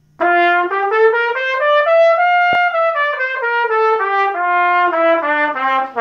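Silver trumpet playing a G major scale (one sharp), separate steady notes, about three a second, climbing an octave and stepping back down past the starting note.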